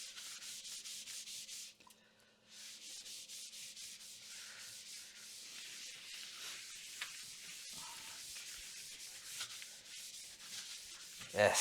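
Rapid scrubbing strokes on a laptop motherboard, cleaning off corrosion left by liquid damage, with a short pause about two seconds in.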